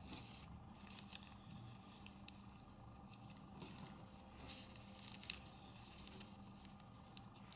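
Faint rustling and crinkling of a square sheet of origami paper being folded and creased by hand, with scattered small crackles and one sharper crackle about four and a half seconds in.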